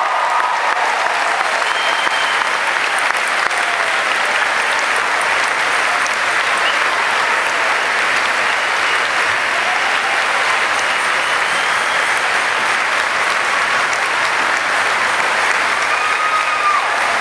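Large audience applauding steadily in a sustained ovation, with an even, unbroken clapping that neither builds nor fades.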